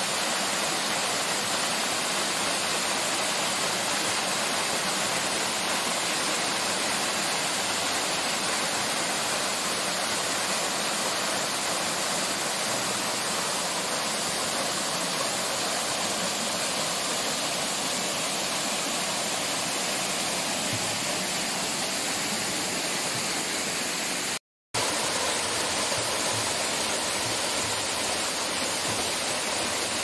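Steady rush of a waterfall's falling water, cut off for a split second about three-quarters of the way through.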